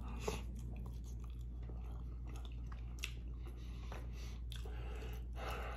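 A person chewing a mouthful of soft chili cheese fries close to the microphone, with scattered soft, wet mouth clicks and smacks.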